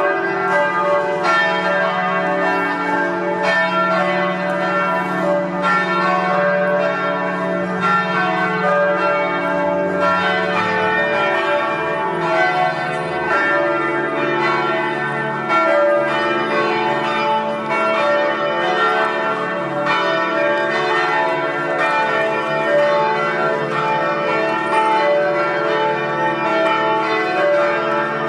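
Church tower bells ringing together in a continuous peal, with a new stroke about every second over the ringing of the ones before.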